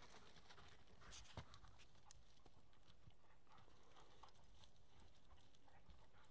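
Faint scuffling and footfalls of two playing dogs, a wolfdog and a pit bull cross, their paws moving over gravel and forest floor. Scattered light clicks, with one sharper knock about a second and a half in.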